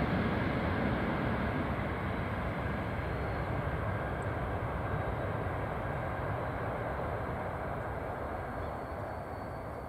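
Tokaido Shinkansen train running across a steel truss railway bridge: a steady rumble and rush of noise that slowly fades.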